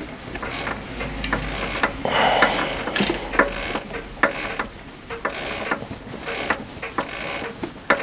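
A threading die in a lathe die holder being turned by hand on a small steel bolt thread: irregular metallic clicks and knocks, several a second, with a low hum during the first half.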